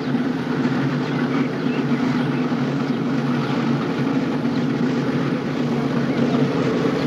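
A steady low motor-like drone with several fixed pitches, under an even hiss; it holds unchanged throughout.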